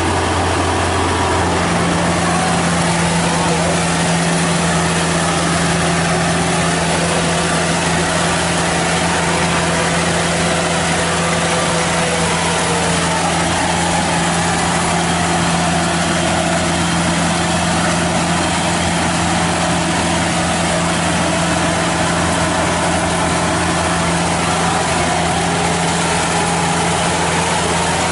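Kubota crawler combine harvester's diesel engine running steadily as it drives through a flooded, muddy rice field. A second, higher steady hum joins about a second and a half in.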